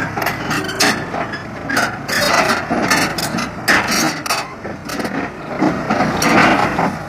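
Irregular metallic clanking and clicking from heavy equipment, over a steady low engine drone.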